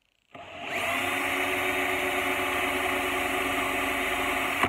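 Handheld electric drill boring a small pilot hole into a steel axe head: it spins up about a third of a second in, rising to full speed within half a second, then runs at a steady whine until it stops suddenly.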